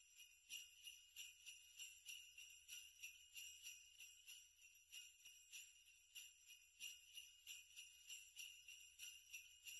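Faint jingle bells shaken in a steady rhythm, about three shakes a second, ringing high and bright.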